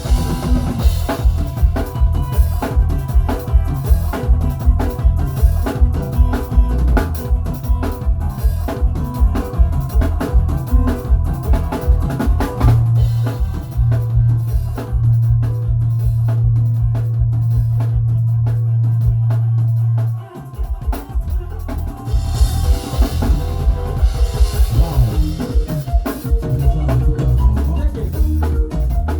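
Drum kit played during a sound check, with a fast, even bass-drum pulse under snare and rim hits, over music. Partway through, a low bass note is held for several seconds, cuts off suddenly, and the drumming picks up again.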